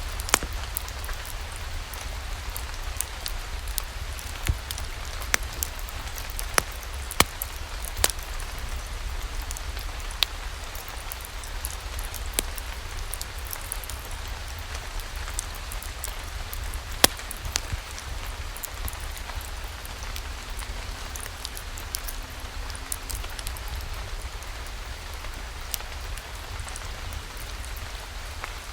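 Steady rain falling, over a low, even rumble, with scattered sharp pops and ticks.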